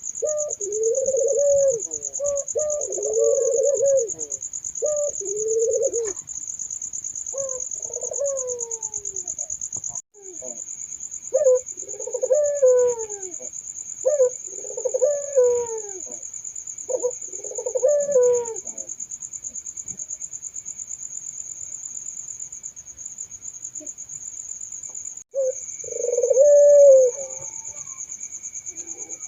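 Puter doves (Barbary doves) cooing in repeated rolling, rising-and-falling phrases, with pauses between bouts. A steady, high-pitched pulsing trill runs underneath throughout.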